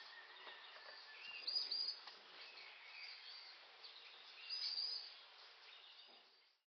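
Faint high bird chirps in two short clusters, about a second and a half in and again about four and a half seconds in, over a soft steady forest hiss that cuts off near the end.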